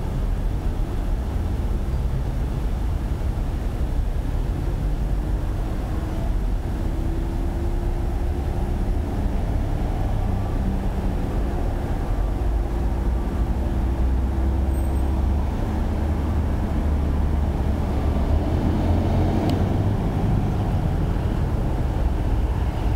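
Busy city street traffic: cars and school buses moving and waiting along the avenue, a steady low rumble of engines and tyres.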